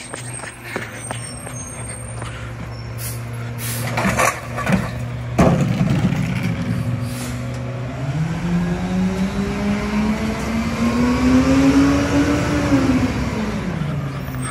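Mack garbage truck's diesel engine idling, then revving up as the truck pulls away from about eight seconds in; the pitch climbs steadily and drops off near the end. Shortly before, there is a hiss of air, like an air-brake release, and a single loud bang about five seconds in.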